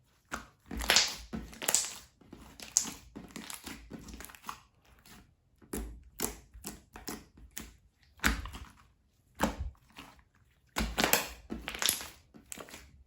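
Slime being squished, pressed and stretched by hand, making irregular crackly squishing sounds: a dozen or so short bursts, each a second or less.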